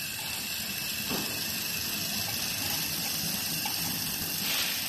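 Steady high hiss from a handheld fiber laser welding gun in weld-seam cleaning mode as it works over a rusty steel plate. It swells briefly near the end.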